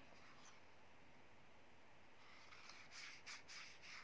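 Near silence with a faint steady hiss. From about halfway there are a few faint clicks and rustles as hands handle a small folding plastic drone and swing its arms open.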